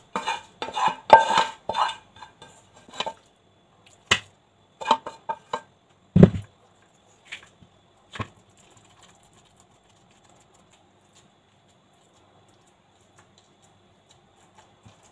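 Wooden spatula knocking and scraping on a non-stick metal plate as carrot halwa is pressed and spread flat. A quick run of clatters comes in the first few seconds, then a few separate knocks up to about eight seconds in, the loudest a dull thump near the middle, then only faint scraping.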